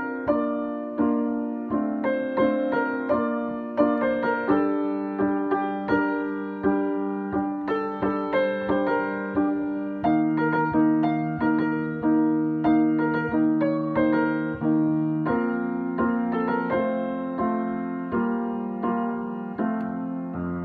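Grand piano played with both hands: an improvised solo arrangement of a pop song, chords and melody notes struck in a steady pulse.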